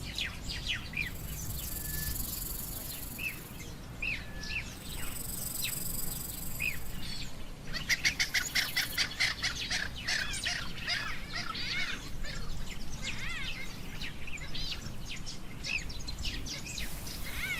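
Small birds chirping and calling over and over, with a dense run of rapid calls about eight seconds in. A high hiss comes and goes behind them.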